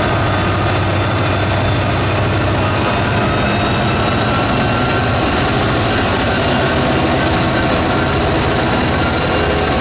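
Two Union Pacific diesel locomotives running past at low speed with a cut of freight cars: a steady diesel engine rumble and wheel noise, with a thin, steady high whine over it.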